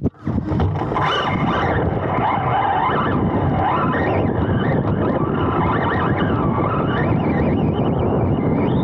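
Onboard sound of a Serpent SRX2 electric 2wd RC buggy racing on dirt: the motor and drivetrain whine rises and falls with throttle over a steady rumble of tyres on the loose track, with wind on the microphone. A brief knock and dropout at the start as the camera is refitted.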